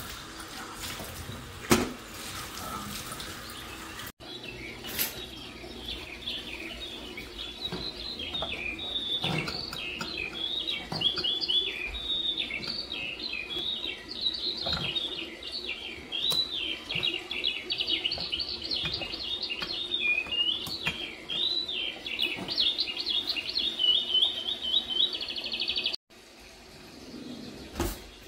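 A small songbird singing a long, fast, warbling song of chirps and trills, ending in a quick run of repeated notes, after a few seconds of running water.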